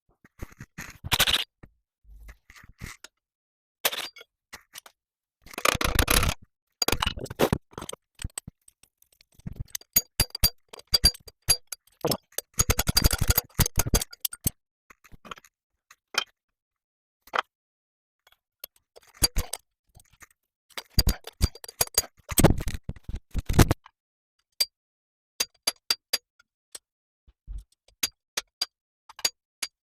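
Hand tools working on the gearbox's bolts: metal clinks, scrapes and spells of quick clicking, in short bursts with pauses between.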